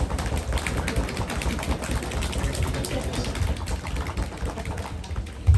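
A fast drum roll, ending on a heavy drum hit near the end.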